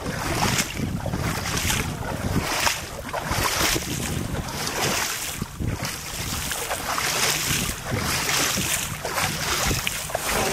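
Sea water splashing and sloshing against the side of a small boat, in surges about once a second, with wind buffeting the microphone.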